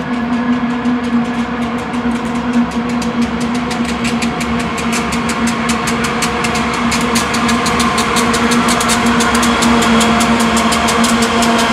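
Union Pacific diesel locomotives at the head of a coal train approaching and rolling past, their engines running with a steady drone. A rapid run of clicks grows denser and louder as the units near and pass.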